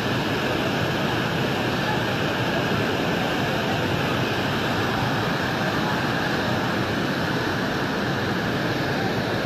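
The Swat River in flash flood, its muddy torrent rushing with a steady, unbroken noise.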